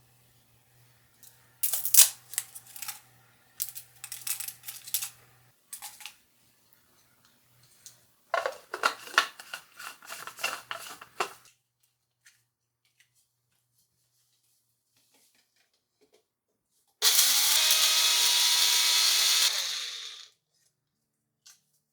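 Two rounds of rattling and clattering, then an electric kitchen mixer grinder runs for about three seconds, spinning up quickly and cutting off.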